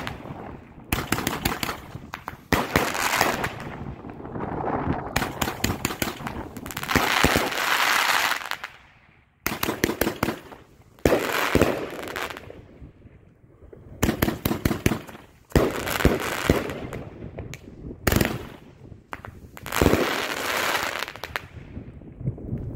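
A 30-shot consumer firework cake (Sit Boy by No Name Fireworks) firing shot after shot: clusters of quick bangs every second or two, with stretches of crackling from the bursting stars in between.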